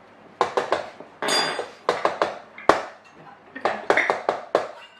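Kitchen utensils and dishes clattering and clinking: a string of sharp knocks, with a ringing clatter about a second in and a single hard knock near the middle.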